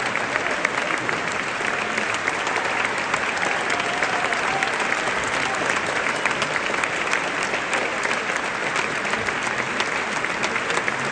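Large theatre audience applauding, a dense, steady mass of clapping.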